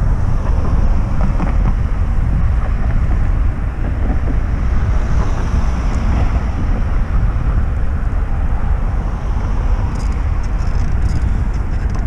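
Wind buffeting the microphone of a camera riding along on a moving bicycle: a steady low rumble.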